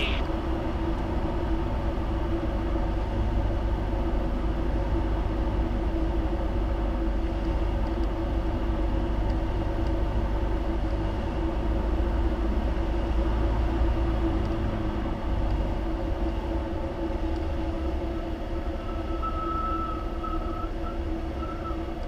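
Single-engine piston airplane's engine and propeller droning steadily inside the cabin during the final approach to landing. A thin, steady high tone comes in near the end.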